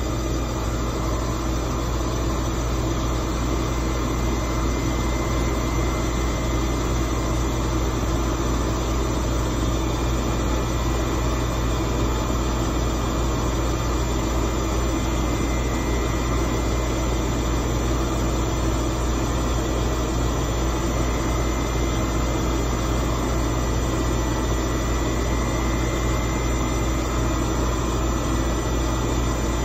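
Haas TL-1 CNC lathe running steadily, its spindle turning the bar while the facing tool feeds across the end face with coolant spraying. A constant machine hum with a thin high tone that grows stronger through the middle of the cut.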